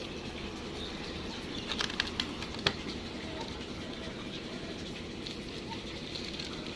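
Steady low hum with a few light clicks and taps about two seconds in.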